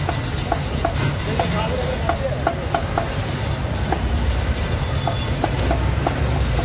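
Busy roadside market ambience: a steady low traffic rumble, with irregular light clicks and faint voices over it.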